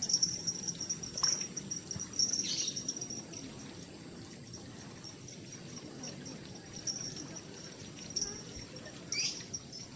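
Outdoor ambience of insects chirping in quick pulses, with two short falling bird calls, one about two and a half seconds in and one near the end.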